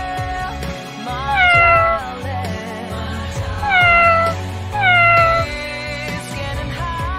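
Domestic cat meowing three times, each call falling in pitch, over background music.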